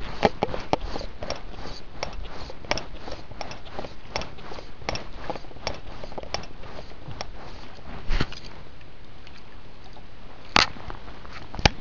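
Close handling noise of a landed chub held in the hand: irregular clicks and knocks, with a louder knock about eight seconds in and a sharp splash about ten and a half seconds in as the fish drops back into the river.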